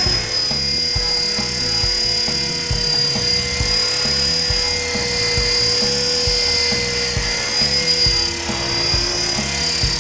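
Blade 400 electric RC helicopter's motor and rotors giving a steady whine as it sits and hovers low with its battery running weak, over background music with a steady beat.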